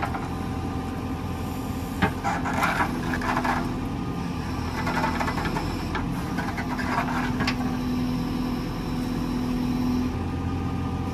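Excavator's engine running steadily, its note swelling and easing as the arm is worked to press the earth down, with two short bursts of noise about two and six seconds in.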